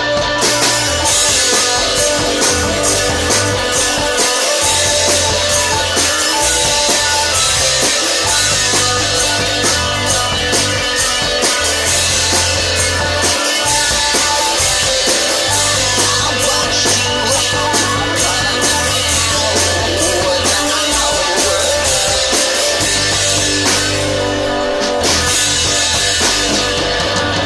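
One-man band playing an original rock song on a self-built rig: drum kit and cymbals beating steadily under guitar, with held bass notes that change every few seconds.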